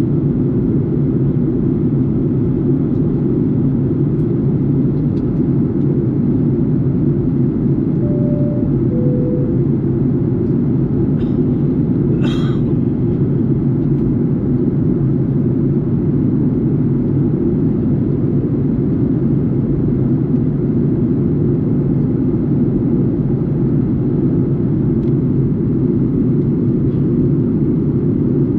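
Steady low drone of a jet airliner's cabin in flight, heard at a window seat over the wing. About eight seconds in come two short soft tones, the second lower, and a few seconds later one brief sharp click.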